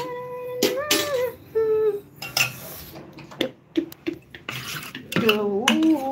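Steel kitchen utensils clinking: a stainless steel spatula and ladle knocking against steel plates and a batter bowl, several separate sharp clinks.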